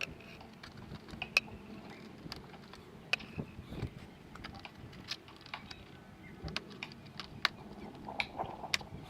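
Irregular, fairly quiet clicks and taps of hand tools and fasteners as the motorcycle's fairing bolts and clips are undone.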